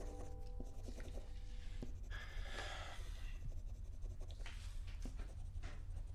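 Pencil and crayon scratching on paper and wall in short drawing strokes, the longest and loudest stroke about two seconds in, over a steady low hum. The held notes of a soft music chord fade out during the first second or two.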